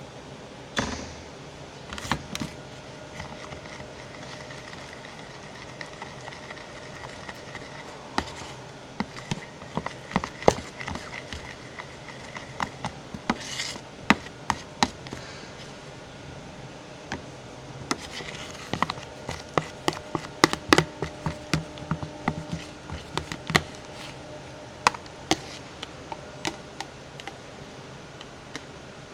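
Glue-and-detergent slime being mixed and worked by hand in a bowl: irregular sharp clicks and small squelches, coming in two busy clusters, over a steady hiss.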